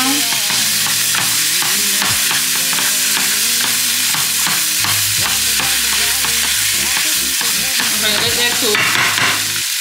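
Impossible Beef plant-based ground meat sizzling steadily in a frying pan while a wooden spoon stirs and scrapes it around the pan.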